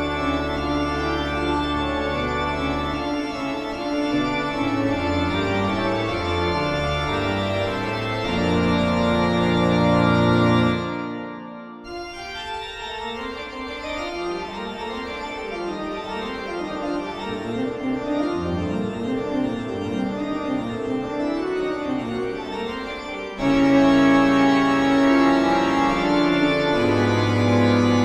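Eerie horror background music of held organ chords. It fades out about eleven seconds in, a quieter passage follows, and a louder chord comes in near the end.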